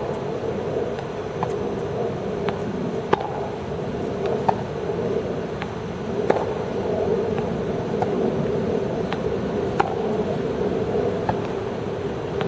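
Tennis balls struck with rackets and bouncing on a court: sharp pops about every second or so, over a steady background hum.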